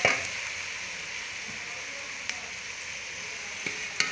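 Sliced onions sizzling steadily in hot ghee in a pot, with a sharp knock right at the start and a few faint clicks near the end.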